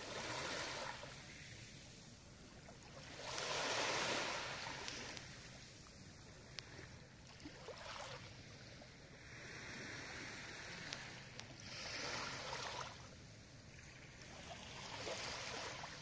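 Small waves lapping on the shore, a soft wash swelling and fading every three to four seconds, with a few faint ticks between them.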